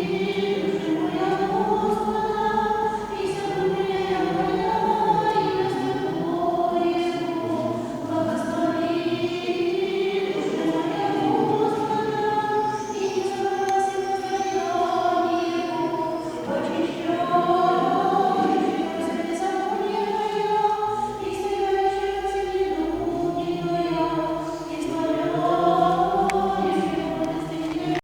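Church choir singing a slow chant in several voice parts, the voices holding long notes and moving together.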